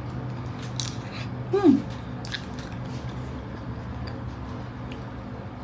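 Quiet eating sounds of ice cream being bitten and licked: small clicks and mouth noises over a steady low hum, with one short falling cry about a second and a half in.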